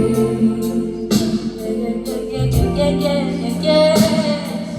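Live band music between sung lines of a slow pop ballad: held chords over a low bass line, with a couple of sharp hits and some sung notes later on.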